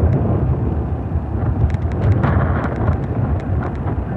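Wind buffeting the microphone: a steady low rumble, with a few faint clicks scattered through it.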